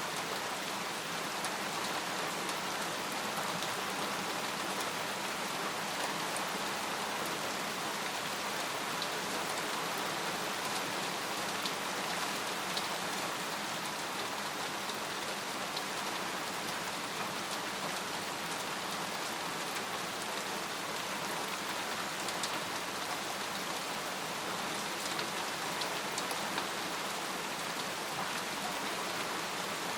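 Steady rain falling on a tent, with scattered single drops ticking through the even hiss.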